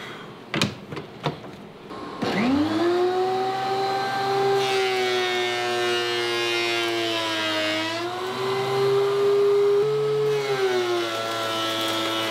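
A few knocks as a dust hose is fitted, then about two seconds in a DeWalt benchtop thickness planer is switched on: its motor spins up with a rising whine and settles into steady running, with more hiss joining a couple of seconds later.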